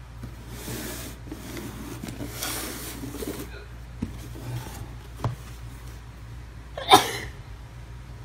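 Cardboard shoebox and sneakers being handled: rubbing and scraping of cardboard, a couple of light knocks, and one short sharp burst, the loudest sound, about seven seconds in. A low steady hum lies under it all.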